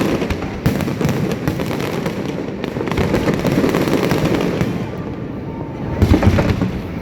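Fireworks display going off: a dense run of crackling pops over a continuous rumble of bangs, with a louder burst about six seconds in.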